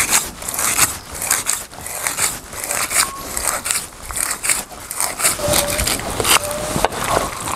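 Chinese cleaver slicing a grass carp fillet into thin slanted slices on a wooden chopping board: a quick, irregular series of short scraping strokes as the blade cuts through the flesh and meets the board.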